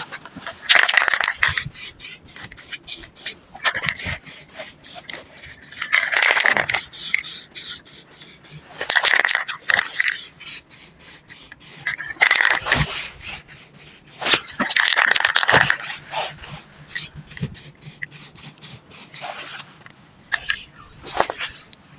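Aerosol spray-paint can spraying in short bursts of hiss about a second long, roughly every two to three seconds, with light clicking and rattling in between.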